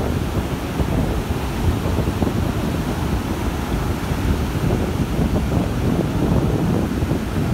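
Wind buffeting the microphone in a steady, irregular low rumble, over the wash of breaking ocean surf.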